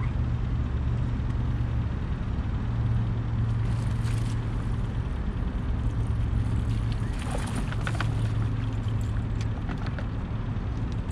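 Boat's outboard motor idling with a steady low hum, and a few short clicks about four seconds in and again around seven to eight seconds in.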